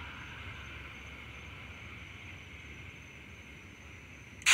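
A faint steady hiss that slowly fades, then a single pistol shot right at the very end, sudden and much louder than anything before it.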